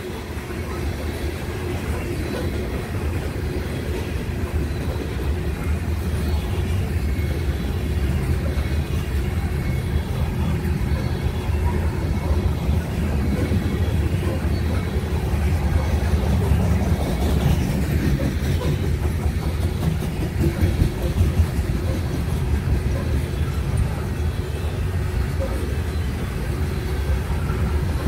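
Covered grain hopper cars of a freight train rolling past: a steady rumble of steel wheels on the rail with rapid clicking.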